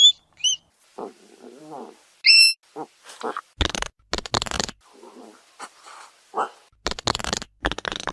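Hedgehog calling and snuffling: a few short high chirps, the loudest about two seconds in, then a run of breathy snuffles in several bursts, the strongest in the middle and near the end.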